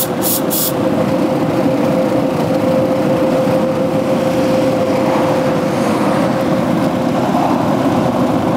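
Fan running with a steady, noisy whir and a constant hum. Near the start there are two short hisses of aerosol carburetor cleaner being sprayed.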